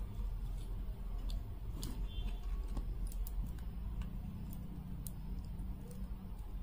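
Scattered light clicks of beads knocking together as strands of beads on wire are handled and adjusted, over a steady low hum.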